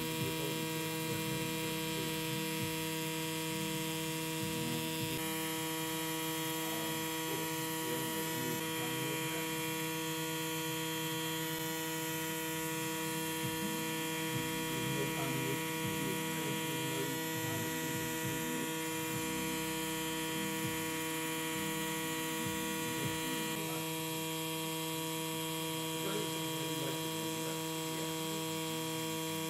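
Xion pen rotary tattoo machine running steadily while the needle lines the tattoo, a constant motor hum that holds one pitch.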